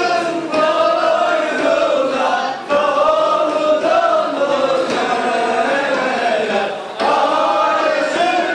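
A group of men chanting together in unison, in long drawn-out phrases with brief breaks between them.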